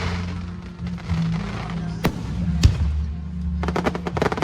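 Aerial fireworks going off over show music played through loudspeakers: two sharp bangs about two seconds in, then a rapid string of cracks near the end.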